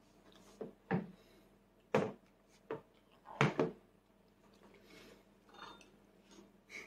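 Plastic sippy cup and tableware knocking on a high-chair tray: about five sharp knocks in the first three and a half seconds, then a few faint clicks.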